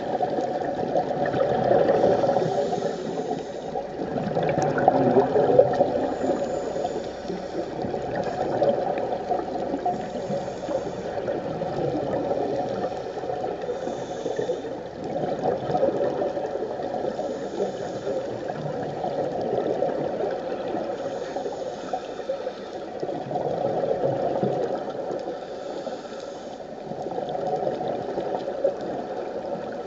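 Muffled underwater sound of scuba diving, heard through an underwater camera housing: steady bubbling and gurgling from the divers' regulator exhalations. A faint hiss returns about every three and a half seconds.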